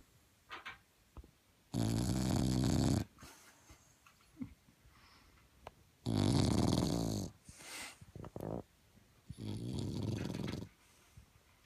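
Bulldog puppy snoring loudly: three long snores about four seconds apart, with soft snuffling breaths between them.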